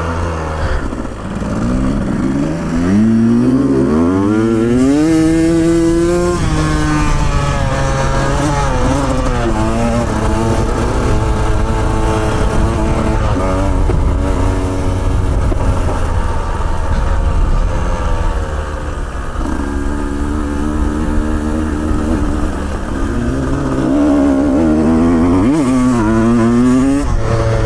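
Off-road motorcycle engine being ridden over rough trail, its pitch climbing and dropping with the throttle and gear changes: revving up in the first few seconds, easing off, running steadily through the middle, and revving up again near the end.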